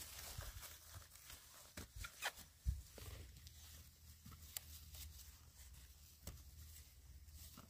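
Faint handling sounds of harvesting small pumpkins by hand: rustling of leaves and vines, with scattered soft clicks and knocks, several close together a couple of seconds in, as pumpkins are set into a woven bamboo basket.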